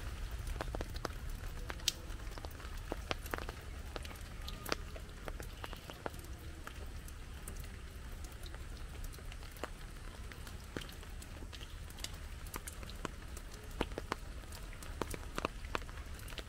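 Heavy rain falling steadily, with many individual drops tapping sharply and irregularly close by.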